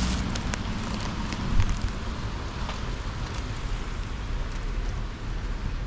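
Steady rain falling outdoors: an even hiss with scattered small ticks of drops, and a brief louder bump about a second and a half in.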